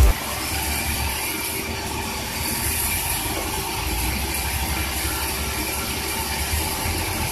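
Band sawmill running with a steady rattling mechanical clatter as a large mango log on its carriage is pushed into the blade.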